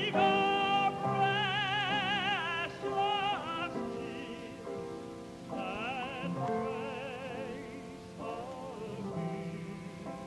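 Vocal group singing a gospel song in harmony: several voices holding notes together with strong vibrato, in phrases that swell and fade.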